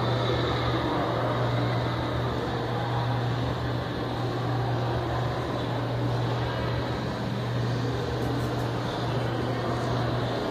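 Steady low mechanical hum over a constant background rush, unchanging throughout.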